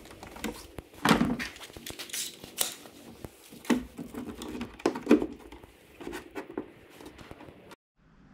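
Irregular knocks, clicks and rustling as bar clamps and a clamped wooden surfboard blank are handled on sawhorses.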